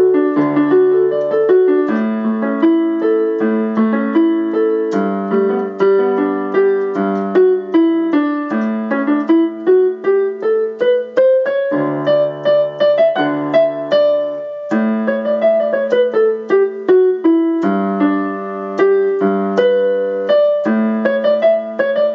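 Piano keyboard playing the D–A–G–A chord progression as arpeggiated broken chords, with held bass notes underneath and an upward run of notes about halfway through, then a falling run.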